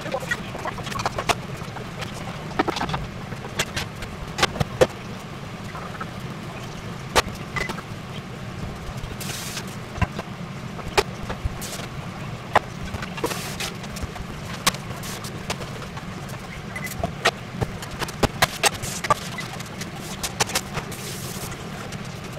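Home-kitchen cooking clatter: scattered clicks and knocks of utensils, bowls and pans being handled, over a steady low hum. Two short hisses, about nine and twenty-one seconds in.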